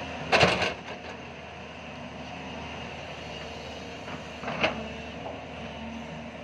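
JCB tracked excavator's diesel engine running steadily under load. The bucket and boom clank loudly about half a second in, and there is a second, shorter knock about four and a half seconds in as the bucket comes down into the mud.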